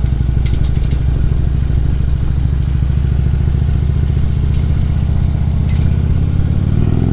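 Harley-Davidson V-twin motorcycle engine running steadily at low revs, then rising in pitch as the bike accelerates near the end.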